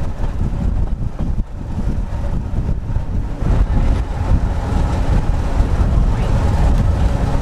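Wind buffeting the microphone over the running rumble of a Victorian electric tramcar moving along its track, getting a little louder about halfway through.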